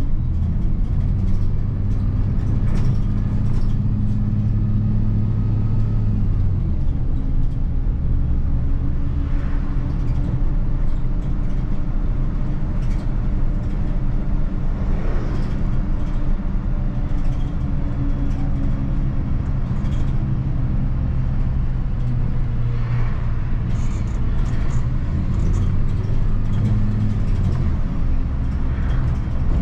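The 2004 MAN 12.223 SLF bus's 6.9-litre turbo diesel engine running as the bus is driven, heard from inside the cab. The engine note changes pitch about six seconds in and again near the end.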